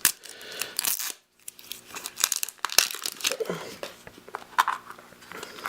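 Crinkly wrapping being torn and crumpled by hand as a small blind-packaged toy egg is opened, with irregular sharp crackles.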